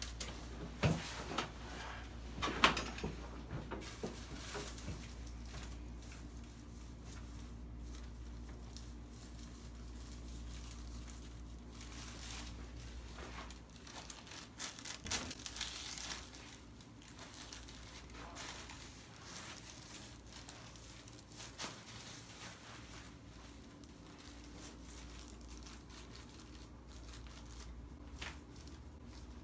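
Rustling and crinkling as a person shifts and turns over on a padded chiropractic treatment table, with a few sharp knocks in the first three seconds. A low steady hum runs underneath and drops away about halfway through.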